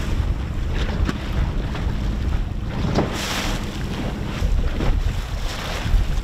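Wind buffeting the microphone over choppy open water, with a steady rumble and waves splashing; a louder rush of water about three seconds in.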